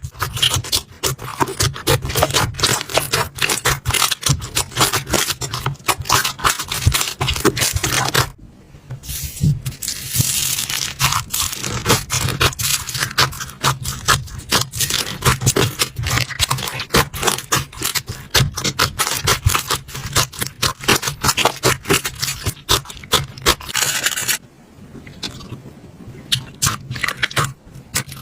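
Slime being squeezed and worked by hand, a dense run of crackles and pops that drops away briefly about eight seconds in and again near the end.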